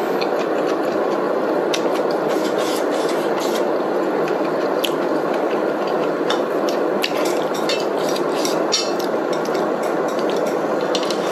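Hotpot broth bubbling steadily in an electric hotpot pan, with scattered light clicks of chopsticks against a glass bowl and chewing while eating.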